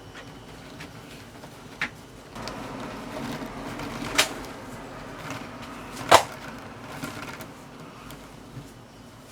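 Clicks and knocks of a plastic Lego Technic mini bulldozer model being handled: a light rattle, with three sharp knocks, the loudest about six seconds in.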